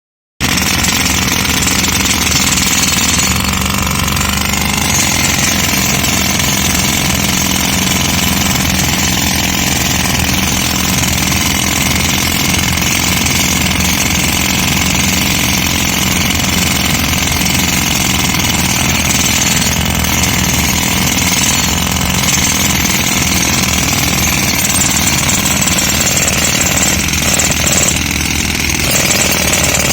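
Pneumatic jackhammer, driven by an air compressor, hammering steadily into concrete to break it up. It starts abruptly right at the beginning.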